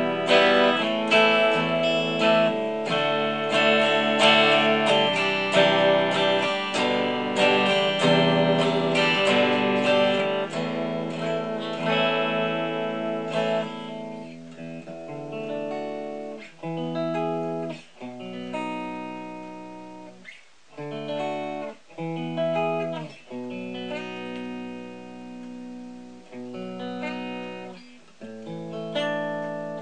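Ibanez S470 electric guitar with DiMarzio Gravity Storm humbuckers, played through an amp as a pickup sound test. For about the first half it runs dense, quick runs of notes. After that it moves to separate held chords with short breaks between them.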